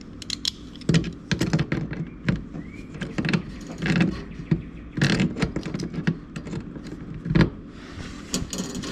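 Irregular metal clinks, scrapes and knocks of a wrench and fittings being handled as a compression fitting is tightened onto a dishwasher's inlet fill valve.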